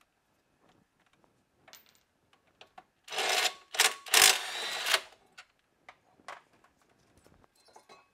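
Cordless power tool running in two short bursts, about three and four seconds in, backing out the 18 mm brake caliper carrier bolts, with light clicks and knocks of the metal parts being handled around them.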